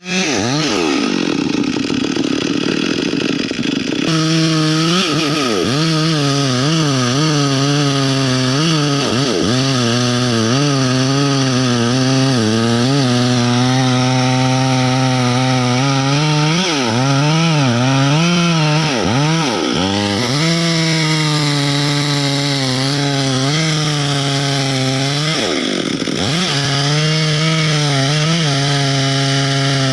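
Chainsaw running at high revs while felling a mahogany tree, its engine note dipping and recovering several times as the chain bites into the wood.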